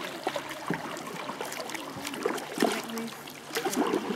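Kayak paddling: water trickling and dripping off the paddle blades with small splashes as they dip. Voices talk briefly in the background about halfway through.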